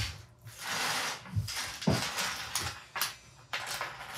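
Rustling and a few light clicks and taps as small 3D-printed plastic crown pieces are handled and set in place.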